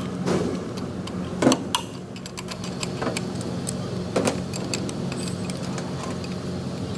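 Metal clinks and knocks from work on a truck gearbox, a few sharp ones standing out about a second and a half in and around four seconds, over a steady low machine hum.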